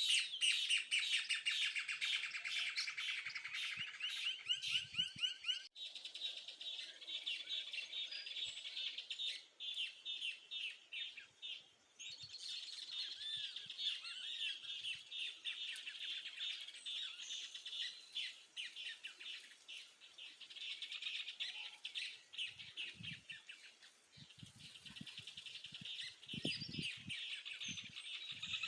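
A rural dawn chorus: several birds chirping and singing at once in fast, repeated high notes that go on with only brief lulls. A few soft low thumps come in near the end.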